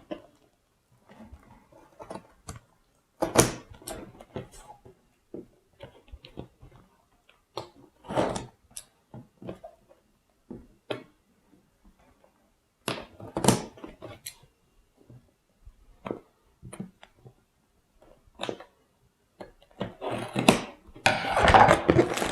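A large cardboard LEGO set box being opened and handled: scattered taps, knocks and scrapes of cardboard at irregular intervals, then a dense continuous crinkling rustle starting about a second before the end as the parts bags inside are handled.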